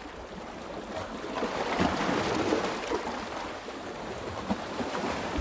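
Small waves washing in on a sandy beach: a steady rush of water with scattered small splashes, swelling a little about two seconds in.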